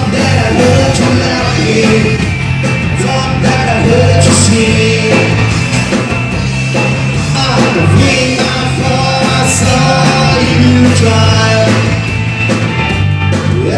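Live rock band playing, with a singer over a steady bass line and drums.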